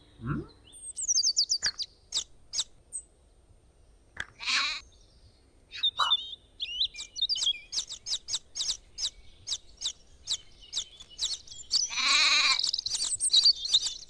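Chicks peeping in short high chirps, sparse at first and then in a fast, busy run from about six seconds in, with a lamb bleating twice: about four seconds in and again near the end. A short low rising swoop comes at the very start.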